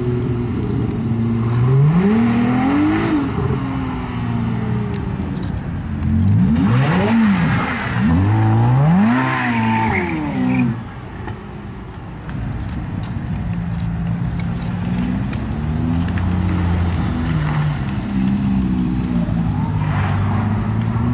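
Racing car engines revving hard, the pitch climbing and dropping again several times as they accelerate and shift. About halfway through the sound dips briefly, then settles into a steadier, lower engine note.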